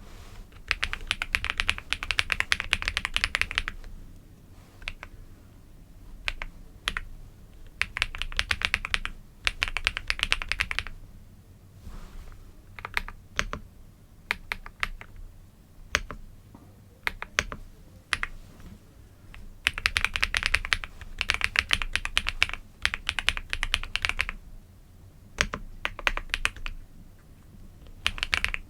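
Typing on a computer keyboard: fast runs of key clicks lasting a few seconds each, broken by pauses with only scattered single keystrokes.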